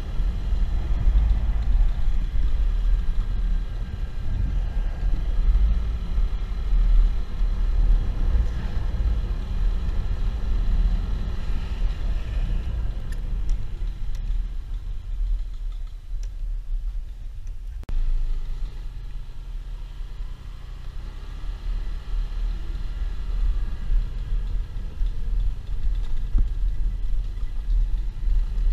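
Motorcycle on the move: a steady low rumble of wind buffeting and the engine running, easing off for a few seconds past the middle before picking up again.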